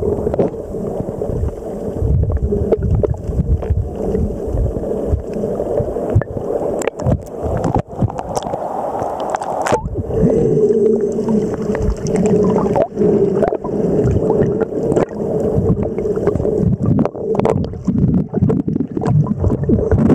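Underwater sound picked up by a submerged camera: muffled surging and sloshing of shallow surf water, with scattered sharp clicks and knocks. A steady low hum comes in more strongly about halfway through.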